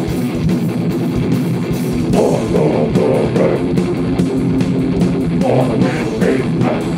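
Live heavy rock band playing loud, with electric guitar, bass guitar and a drum kit keeping up fast, steady drumming.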